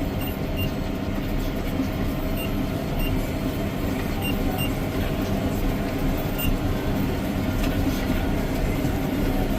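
Tractor engine and round baler running steadily under load as the bale builds, heard from inside the tractor cab.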